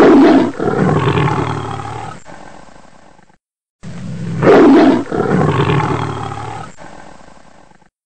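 A big cat roaring twice, the same recorded roar played again about four seconds in; each roar opens loud and trails off in fading grunts.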